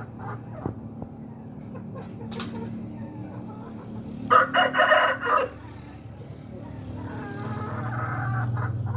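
Aseel rooster crowing once, loudly, for about a second starting about four seconds in, with softer chicken calls before and after over a steady low hum.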